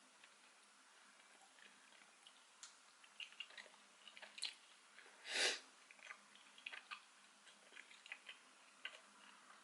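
Quiet, close-up chewing of spicy rice cakes, with many small wet mouth clicks scattered throughout and one louder short breathy rush about five and a half seconds in.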